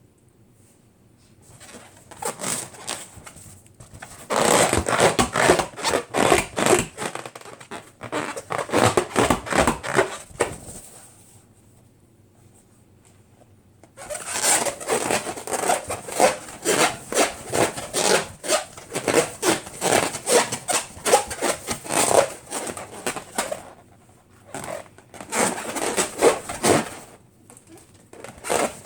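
Rubber balloons being handled and rubbed: rapid scratchy strokes in two long runs, with a pause of about three seconds between them.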